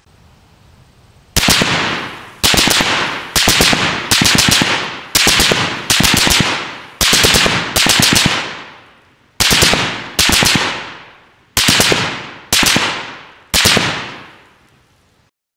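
Bren light machine gun and Browning Automatic Rifle firing short bursts of a few rounds each, about a dozen bursts roughly a second apart, each trailing off in echo.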